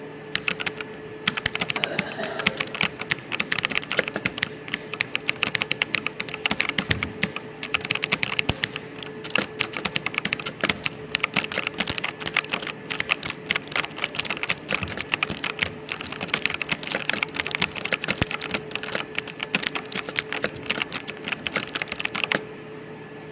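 Fast typing on a computer keyboard: a dense, irregular run of key clicks that stops about a second before the end, leaving a steady hum.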